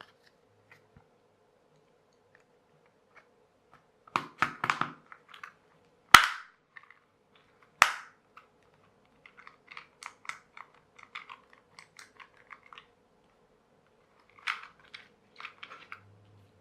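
Small hard plastic parts being handled on a desk: a short clatter, two sharp loud clicks, a run of small light ticks, then another short clatter near the end.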